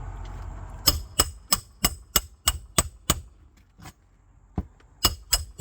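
Hammer blows on a metal roof snake, driving the last replacement nail under a shingle. About eight quick, ringing metal-on-metal strikes come at roughly three a second, then after a pause two more near the end.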